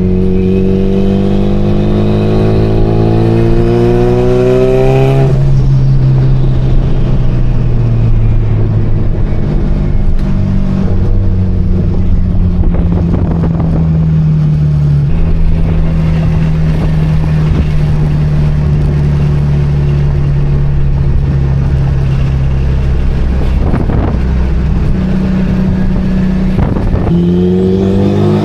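Mitsubishi Lancer Evolution IX's turbocharged 4G63 four-cylinder engine pulling the car up through the revs for about five seconds, then cruising at a steady, lower engine note that drops again about halfway, before revving up once more near the end.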